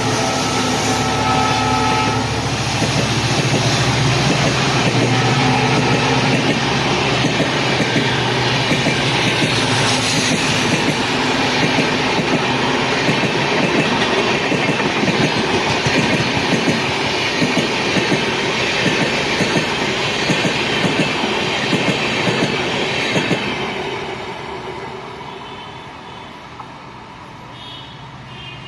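Diesel passenger train passing at high speed: the WDP4D locomotive's horn sounds over the first couple of seconds and again briefly around five seconds in, under the rush and clatter of the express coaches' wheels over the rails. The rushing fades away after about 23 seconds as the train recedes.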